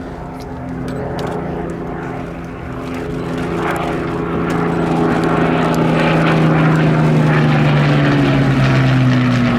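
Rolls-Royce Merlin piston engines of a Hawker Hurricane and an Avro Lancaster making a low pass. The steady propeller drone grows louder over the first six seconds, and its pitch starts to fall near the end as the aircraft go by.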